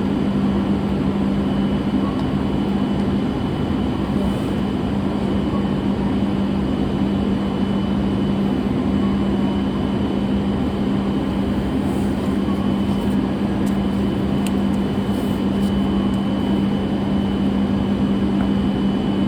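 Steady rumbling vehicle noise with a constant low hum and a faint high whine, unchanging throughout.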